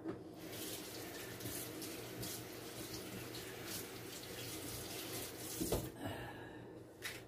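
Faint running water, as from a tap, that stops about six seconds in, with a couple of short knocks as it stops.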